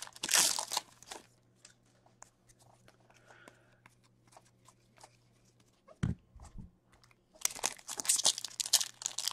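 Foil wrapper of an Upper Deck hockey card pack being torn and crinkled open, then light card handling with a soft thump about six seconds in. Loud crinkling of wrapper again near the end.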